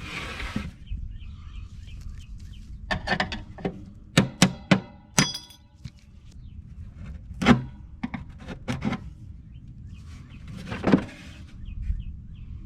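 Metal clanks, knocks and scrapes as a furnace blower wheel and its sheet-metal housing are handled, some knocks ringing briefly. A scrape opens it, a quick run of clanks comes in the middle, and another scrape comes near the end.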